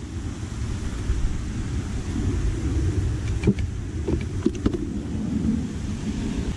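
Steady low rumble of wind on the microphone, with a few light clicks from handling about three and a half to five seconds in.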